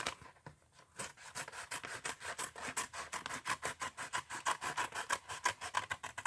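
A package being cut open with a blade in quick back-and-forth sawing strokes, several a second, starting about a second in.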